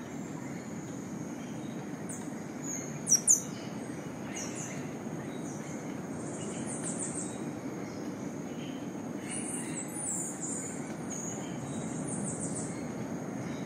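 Tropical rainforest dawn ambience: birds chirping in short, high, repeated trills over a steady low rumble, with a thin steady high tone throughout. Two loud, sharp chirps come close together about three seconds in.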